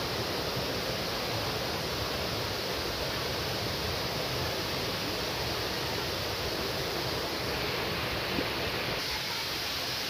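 Steady rushing of a waterfall and stream, an even hiss that holds at one level throughout.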